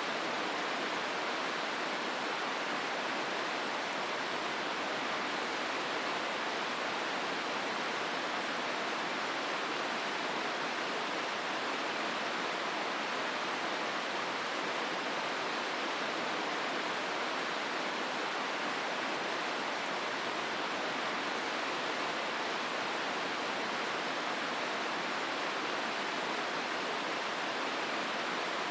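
Steady rush of the Hozu River's rapids flowing through the rocky gorge, an even, unbroken water noise.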